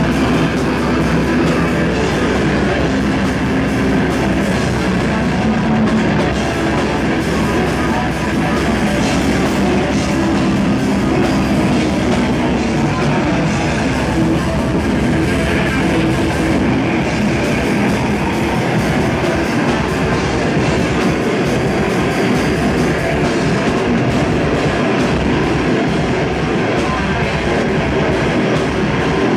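Melodic death metal played live by a band: distorted electric guitars over a drum kit, loud and continuous.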